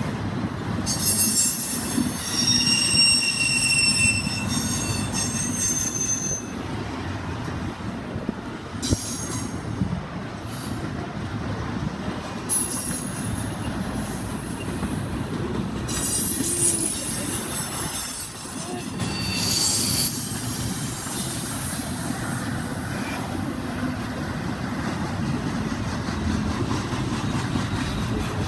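Double-stack container train rolling past: a steady rumble of well-car wheels on the rails, with high-pitched wheel squeal coming and going during the first several seconds and again about two-thirds of the way through.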